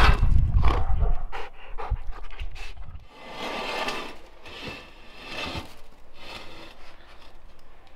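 German shepherd panting hard while leaping and tugging at a hanging rope toy, loudest in the first three seconds. After that comes a quieter stretch of soft rustling and clicks.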